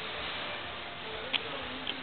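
Steady outdoor background hiss with two faint clicks, one about a second and a half in and one near the end.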